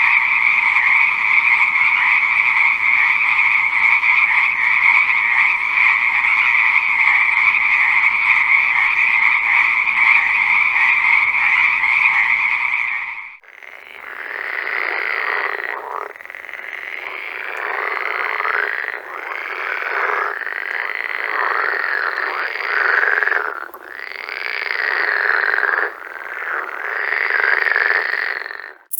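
A dense chorus of frogs calling together, loud and steady, with a constant trilling drone. About halfway through it cuts to another recording of frogs calling in bouts of a couple of seconds, with short breaks between them.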